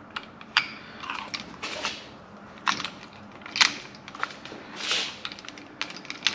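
Irregular clicks, knocks and scrapes of metal parts being handled as an A/C hose and its fitting are seated in the dies of a hand-held hydraulic crimping tool. The sharpest clicks come about half a second, 2.7 and 3.6 seconds in, with a short scrape about 5 seconds in.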